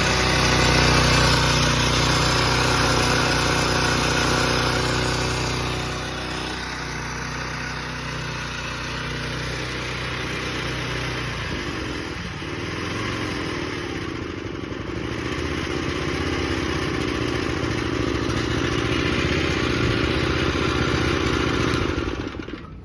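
Honda Komame F210 mini tiller's small engine running, louder at first and then dropping in speed about six seconds in. It runs on steadily and cuts off abruptly near the end.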